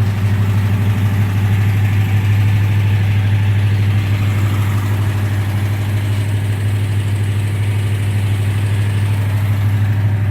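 1987 Jeep Grand Wagoneer's AMC 360 V8 idling steadily with an even low hum.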